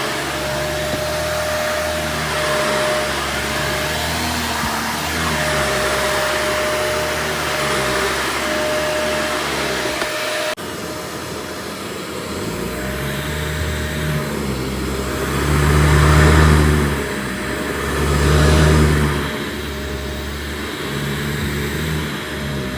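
Shark AZ4002 vacuum cleaner running with a steady whine. About ten seconds in the sound breaks off abruptly, then the motor hum swells louder twice in the second half.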